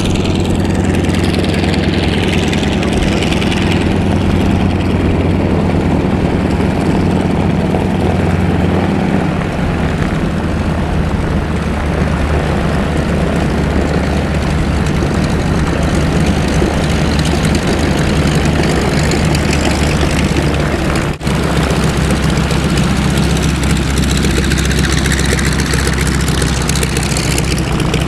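Radial-engine AT-6 Texan trainers flying over in formation: a steady, loud propeller drone with a deep engine hum. There is a brief cut-out about two-thirds of the way through.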